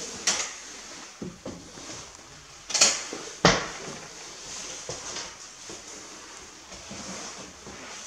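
A few sharp knocks in an empty room over a steady hiss; the two loudest come close together about three seconds in.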